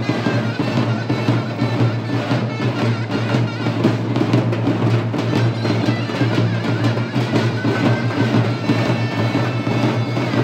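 Turkish davul drums played together, beaten with a heavy mallet and a thin stick in a dense, steady rhythm.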